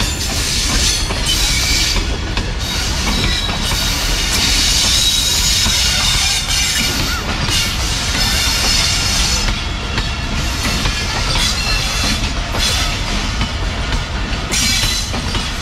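A train in motion heard from inside the locomotive cab: a steady rumble and rattle of wheels over the rails, with a high hiss.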